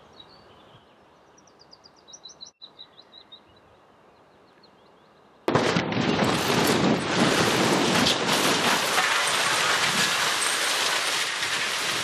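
Faint bird chirps, then about five and a half seconds in a sudden loud, rough roar full of sharp cracks, which runs on: demolition blasting charges going off at the concrete legs of an old mine conveyor gallery.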